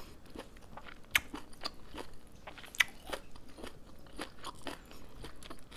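A person chewing and biting food, with irregular crisp crunches, the sharpest about a second in and again near three seconds.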